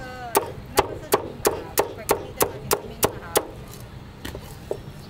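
Meat cleaver chopping crispy roasted pork belly on a chopping block: about ten sharp, even strokes, roughly three a second, then two fainter strokes near the end.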